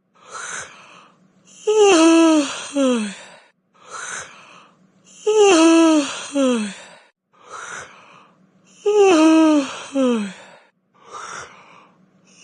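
Yawns, over and over: each a breathy in-breath followed by a voiced, falling groan with a shorter second falling note, repeating at an even pace about every three and a half seconds, three times.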